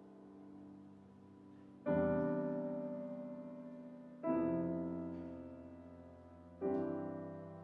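Piano chords struck three times, about two and a half seconds apart, each left to ring and slowly fade, over a quiet sustained tone from the ensemble.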